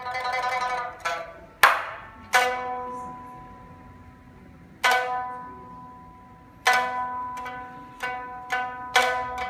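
Solo pipa playing: a quick tremolo passage, then a sharp strummed chord, followed by sparse single notes and chords that ring and die away slowly, with quicker plucks near the end.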